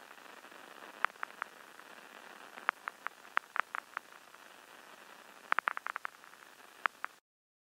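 Low steady hiss with scattered sharp clicks and pops, some in quick clusters, cutting off abruptly just before the end.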